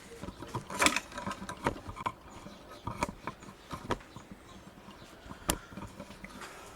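Workshop clatter: a few irregular sharp knocks and clicks over a low background, with no engine running.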